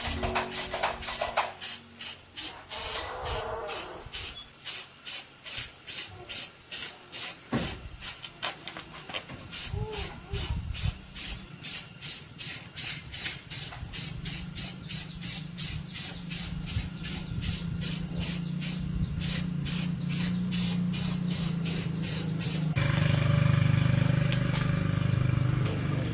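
Rhythmic scraping or brushing strokes, about three a second, then a steady machine hum takes over near the end.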